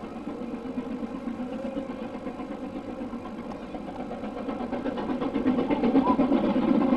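LMS Black 5 steam locomotive working, a fast, even beat of exhaust and motion growing louder over the last couple of seconds as it draws near.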